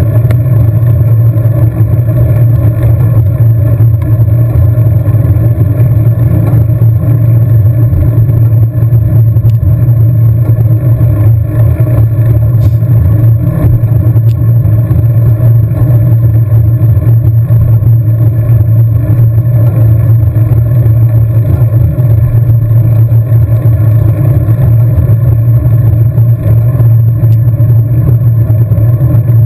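Loud, steady wind rumble on the microphone of a camera riding on a road bike at racing speed.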